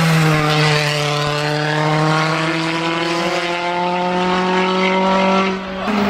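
Hyundai i20 R5 rally car's engine pulling hard as it drives past, one steady engine note rising slowly in pitch as it accelerates. The sound breaks off just before the end.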